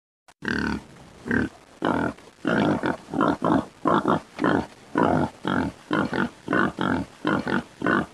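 A run of short animal grunts, about two a second and coming slightly faster towards the end, used as a cartoon animal sound effect.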